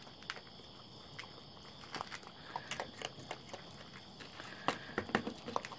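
Raccoon eating at a plastic dish: irregular crunches and clicks, coming thicker and louder near the end. A steady high chorus of night insects runs underneath.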